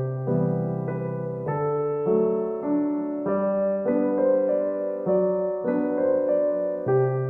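Background piano music, a gentle tune with slowly changing chords over a steady bass.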